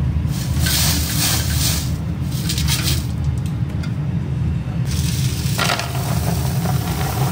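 Silver granules rattling and hissing against the inside of a steel pot, then pouring out onto a sheet in a gritty rush near the end. A steady low rumble runs underneath.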